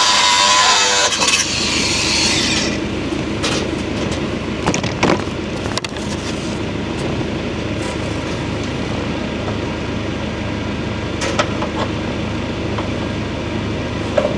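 Heavy diesel demolition machinery running steadily, with a few sharp metal knocks. A loud whining motor cuts off about a second in.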